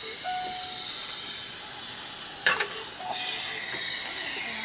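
Steady hiss of oxygen flowing through nasal cannula prongs from a wall flowmeter turned up as high as it goes, keeping the apneic patient oxygenated during the intubation. A sharp click about halfway through and a couple of short beeps.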